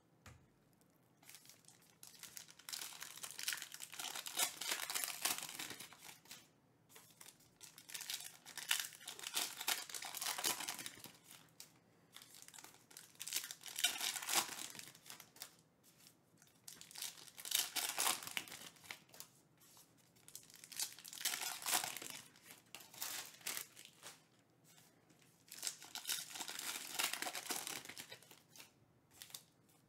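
Foil trading-card packs (2022 Panini Elite Extra Edition Baseball) being torn open and crinkled by hand, one after another, in repeated bursts of crinkling and tearing every few seconds.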